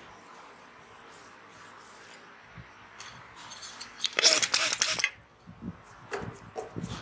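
Hands rubbing during a head massage: a loud rustling rub about four seconds in that lasts about a second, then softer short rubs and taps.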